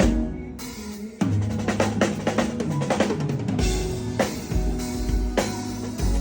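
A band playing a new song at a sound check: drum kit with kick and snare hits, over bass and guitar. A few drum strikes, then the full band comes back in a little over a second in and plays on steadily.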